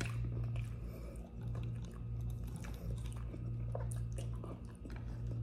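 A person chewing crunchy scorched rice crust (dokot), with scattered small crisp crunches and mouth clicks over a steady low hum.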